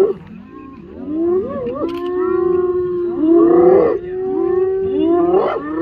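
Spotted hyenas calling, several voices overlapping in long, wavering cries that slide up and down in pitch, starting about a second in: a clan giving voice while it mobs a lion.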